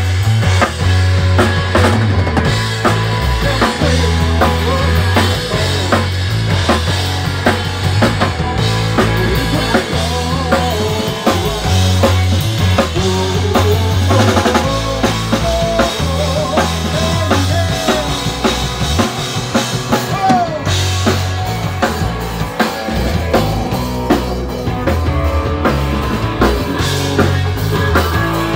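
Rock trio playing loud: drum kit with kick and snare driving the beat under a moving bass guitar line and electric guitar.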